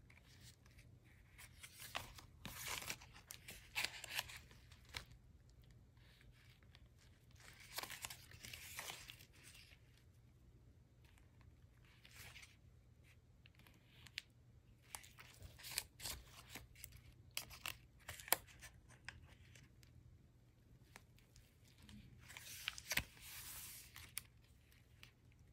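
Pages of a chunky junk journal made of paper tags being turned and handled: paper rustling in several short bursts, with scattered small clicks and taps in between, over a faint steady low hum.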